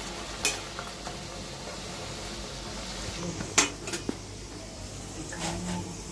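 Puris deep-frying in hot oil in a kadhai, a steady sizzle, with a few sharp clicks of a slotted spoon against the pan; the loudest click comes about three and a half seconds in.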